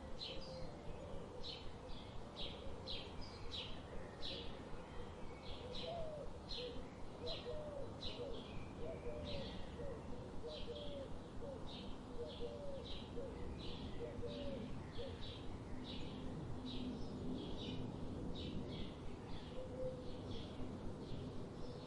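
Bird ambience: a bird gives short, high chirps over and over, about twice a second, while lower cooing notes waver underneath through the first half and once more near the end.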